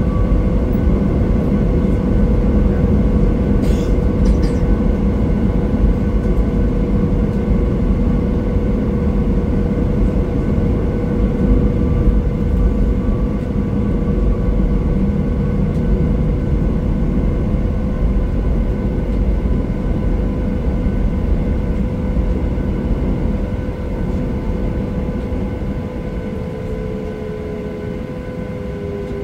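Boeing 737 heard from inside the passenger cabin while taxiing: a steady low rumble with a constant engine whine. Near the end the noise eases and the whine drops slightly in pitch.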